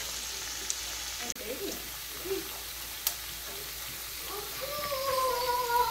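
Chicken pieces sizzling as they fry in oil and butter in a stainless steel pan, the braising water cooked off, with a few light clicks.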